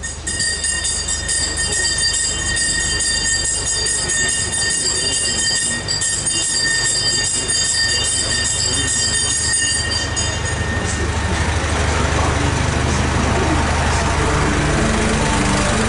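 Two-foot-gauge locomotive, converted from steam to diesel, passing close by with a continuous high-pitched metallic squeal of wheels on the rails. About ten seconds in the squeal stops and the low running of its diesel engine takes over.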